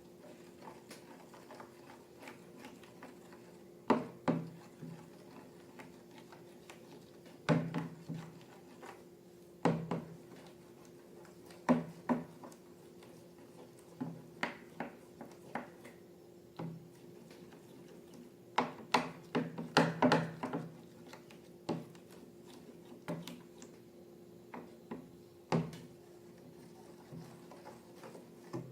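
Irregular taps, clicks and knocks of objects being handled and set down on a tabletop, over a steady low hum, with a quick cluster of them a little past the middle.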